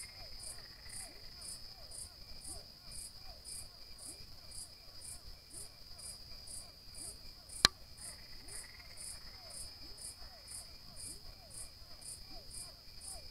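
Night insect chorus of crickets: a steady high trill with a pulsing call about twice a second and lower falling notes repeating under it. A single sharp click about halfway through stands out above the chorus.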